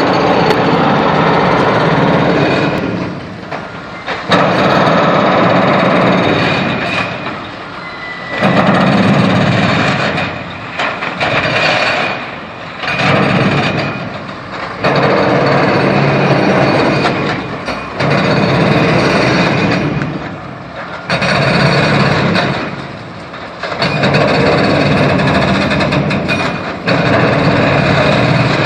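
Heavy road construction machinery running with a loud, surging roar that eases off and swells back every three to four seconds.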